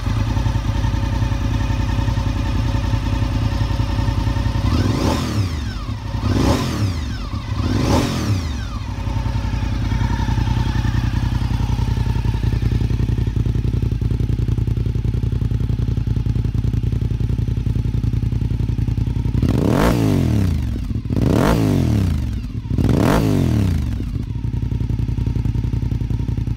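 2002 Honda RC51's 999 cc V-twin, through an Erion Racing aftermarket muffler, idling warmed up with the fast idle lever at the normal run position. Its throttle is blipped three times in quick succession, about a second and a half apart, about five seconds in, and three more times about twenty seconds in, each rev rising and dropping back to idle.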